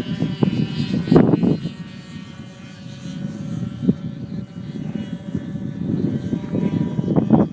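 Twin-engine RC P-38 Lightning model plane flying, its motor tone fading as it moves away and building again as it comes back, with wind gusting on the microphone about a second in and near the end.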